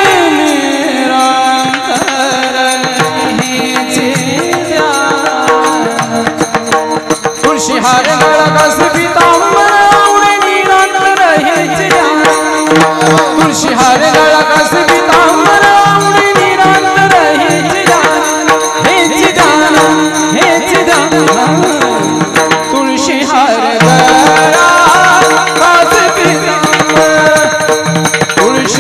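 Marathi Varkari devotional bhajan: a male voice singing with ornamented, sliding melody, accompanied by steady hand-drum playing and small cymbals.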